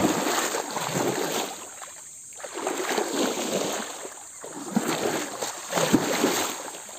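Shallow water sloshing and splashing in three or four surges as someone wades through a muddy pool, with short lulls between them.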